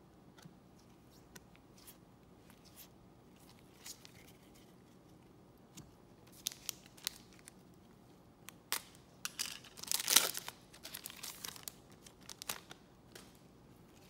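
A trading-card pack wrapper crinkling and being torn open in a run of crackles from about six seconds in, the loudest rip about ten seconds in. Faint taps of cards being handled come before it.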